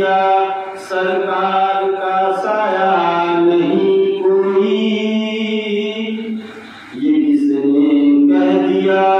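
A man's voice chanting a melodic religious recitation in long held notes that rise and fall. It breaks briefly about a second in, and fades and pauses again near seven seconds.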